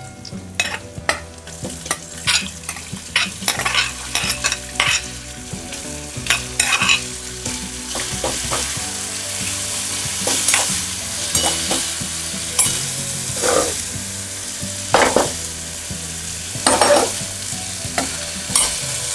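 Peeled field beans (birde) frying in hot oil in a stainless-steel kadhai, sizzling steadily while a steel spoon stirs them, with frequent clicks and scrapes of metal on the pan. The sizzle grows fuller about halfway through.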